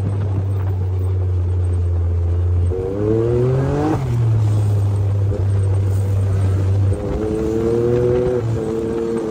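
Can-Am Maverick X3's turbocharged three-cylinder engine running through a muffler-delete exhaust while driving a dirt trail: a steady low drone, with a rise in revs about three seconds in that drops back off at four seconds. About seven seconds in, a higher engine note comes in and holds steady.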